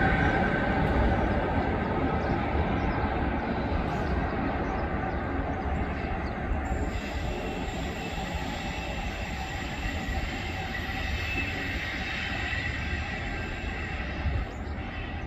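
E.405 electric locomotive running light on the rails and moving away: a steady rumble of wheels on track with thin high squealing tones over it, slowly fading.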